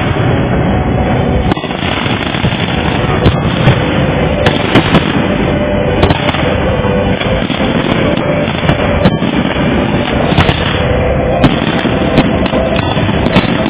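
Fireworks display: a dense, continuous barrage of booms and crackling, with many sharp bangs following close on one another.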